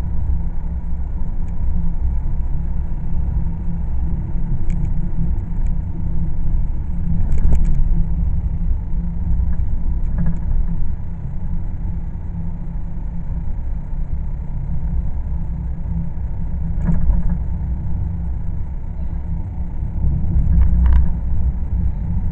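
Steady low rumble of a car driving, its engine and tyre noise heard from inside the cabin, with a few light clicks and rattles.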